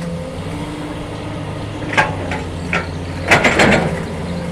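Excavator's diesel engine running steadily, with a few sharp knocks about two seconds in and a louder burst of clanking and clatter near the end.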